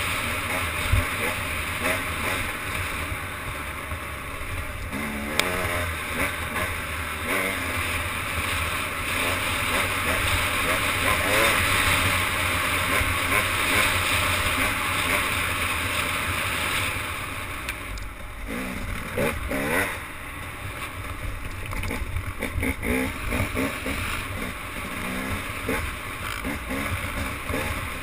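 A motorboat running steadily on the water under a continuous rush of wind and water. Voices call out briefly about five seconds in and several times in the last ten seconds.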